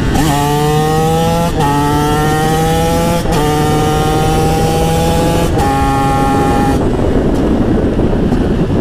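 TM SMR 125 two-stroke supermoto engine with an HGS exhaust pulling hard uphill, its pitch climbing in each gear with three quick upshifts. Near the end the throttle closes and the engine note drops away under wind rush on the helmet microphone.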